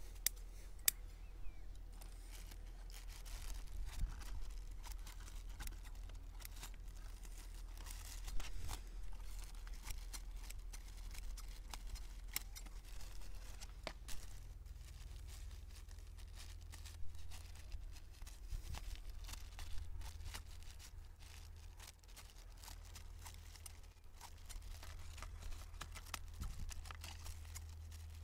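Plastic bags rustling and crinkling, with many scattered small clicks and knocks over a low steady rumble.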